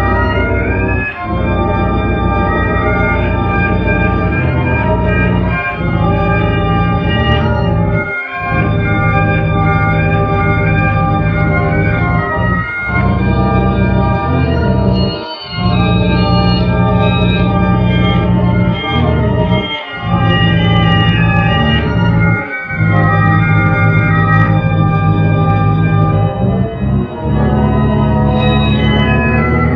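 Organ-like music: sustained chords that step up and down in pitch, cut by short breaks every two to three seconds.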